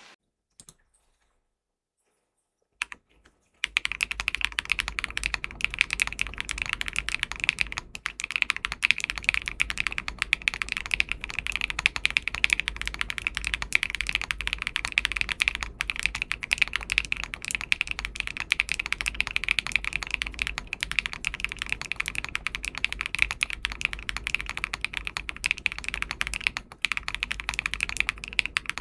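Fast, continuous typing on a Dimple r3 40% custom mechanical keyboard with Wingtree Anon switches and MW Fuyu keycaps. After a few seconds of near silence with a couple of lone keystrokes, a dense run of key clicks starts about three and a half seconds in.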